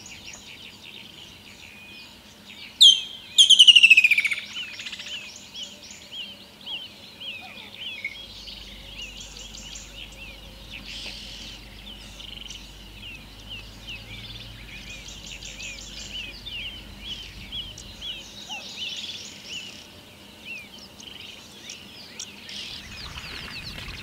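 Woodland kingfisher calling: a sharp high note about three seconds in, then a loud trill that falls in pitch over about a second. Many small, repeated bird chirps fill the background.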